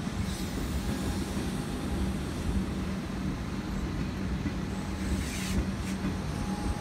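Melbourne Metro electric suburban train running past: a steady rumble of wheels on rail under a constant low hum, with a brief hiss about five seconds in.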